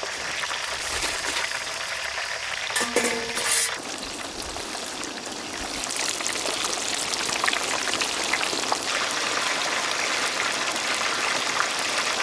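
Hot oil sizzling and crackling steadily as chicken deep-fries, with a brief louder sound about three seconds in.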